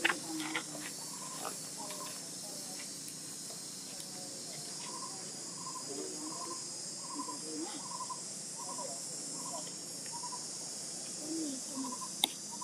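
Steady high-pitched insect drone, with a short note repeated just under twice a second from about five seconds in, and one sharp click near the end.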